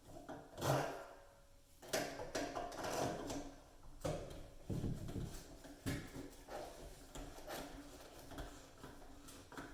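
Moen kitchen faucet's mounting nut being tightened with the faucet's installation wrench: irregular clicks, knocks and scraping of the wrench and parts being handled under the sink.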